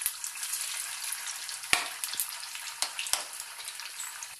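Batter-coated chicken pieces deep-frying in hot oil in a steel kadai, with a steady crackling sizzle. Three sharp knocks come in the middle as the pieces are stirred with a spatula against the pan.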